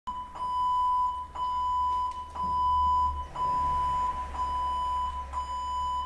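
A steady, high electronic beep tone that restarts with a short click once a second, about six times, over a low hum. It stops at the end.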